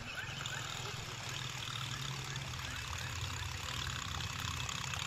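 Baitcasting reel being cranked steadily, its gears giving a continuous low whir as the line is retrieved.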